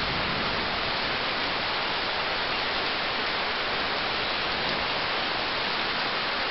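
Steady rain falling, an even hiss with no distinct individual strikes.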